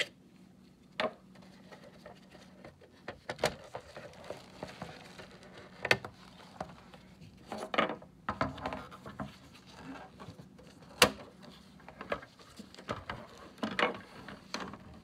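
A folding plastic laptop stand being handled and unfolded: irregular clicks and knocks of its hard plastic frame and hinged parts, with short rubbing rustles between them. One click, about two-thirds of the way through, is sharper than the rest.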